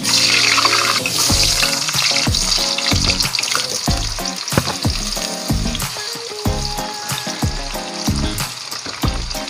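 Potato and carrot chunks frying in hot oil in an aluminium wok. The sizzle is loudest as they go into the oil at the start, with knocks as pieces are added and stirred with a wooden spatula. Background music plays underneath.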